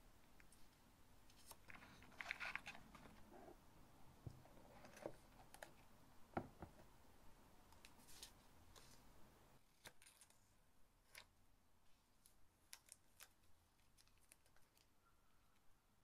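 Soft rustling and crinkling of paper stickers and cut-out paper pieces being handled and laid on a journal page, with scattered light clicks and taps; a sharper tap comes about six seconds in.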